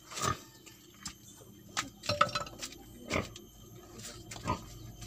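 Sharp wooden knocks and clacks, about five in irregular succession, as lengths of wood and bamboo are knocked against the bamboo-slat wall of a chicken coop.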